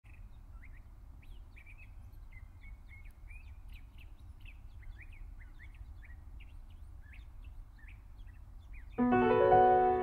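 Small birds chirping with short, quick calls over a low steady rumble of outdoor ambience. About nine seconds in, music cuts in suddenly with a loud, sustained chord of ringing tones.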